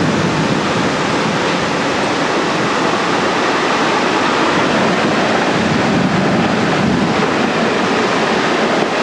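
Strong wind from a tornado passing close overhead, rushing steadily and loudly across the camcorder's microphone.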